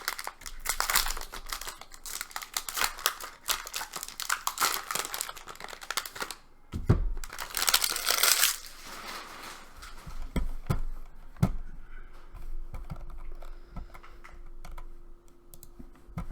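Foil and plastic wrappers of retail baseball card packs crinkling and tearing as they are ripped open, dense for the first six seconds. A dull thump and a loud rip come about seven seconds in, followed by quieter light clicks and rustling.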